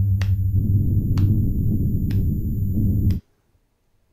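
A loud, low steady drone with sharp clicks about once a second over it, all cutting off suddenly a little after three seconds in.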